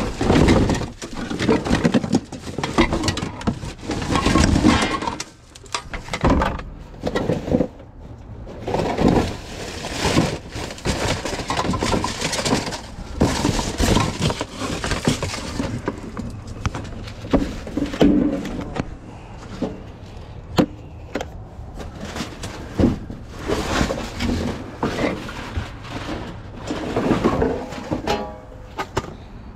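Rummaging through scrap and trash by hand: irregular clattering knocks, clicks and rustling as items are moved and handled.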